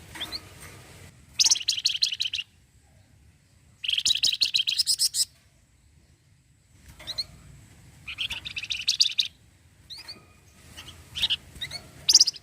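Flamboyan songbird singing its rattling 'cretet' song: three fast, buzzy trills of about a second or more each, around one and a half, four and eight seconds in, with short chirps in between.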